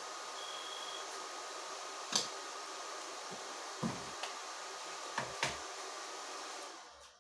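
Dnipro-M SAB-260N welding inverter switched on: its cooling fan runs with a steady hum, a short high beep sounds about half a second in, and an internal relay clicks about five times before everything cuts off near the end. The machine is faulty; the owner suspects shorted mains filter capacitors.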